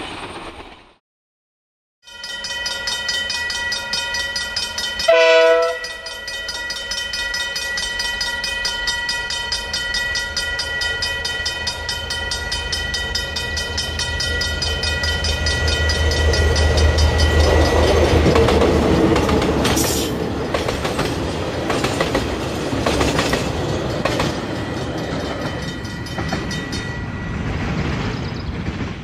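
A KiwiRail DL-class diesel-electric locomotive sounds one short horn blast a few seconds in. Its engine rumble then builds as it approaches and passes, peaking about two-thirds of the way through. A short train of coal wagons follows, clattering over the rail joints.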